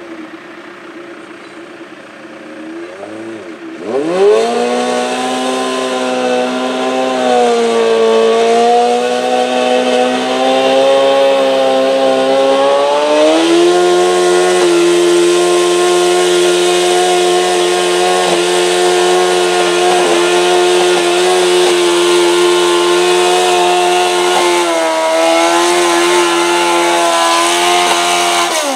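Modified John Deere garden tractor's engine at full throttle, pulling a stoneboat sled. It jumps up to high revs about four seconds in, sags as the load bites, climbs again and holds a high steady pitch, dips near the end, and falls away right at the end.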